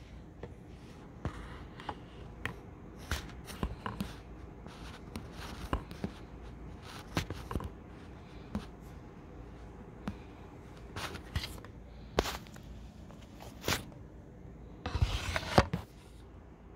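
Handling noises: irregular taps, clicks and short rustles as a phone and the waxing supplies are moved about on a tiled floor, with a longer, louder rustle about fifteen seconds in.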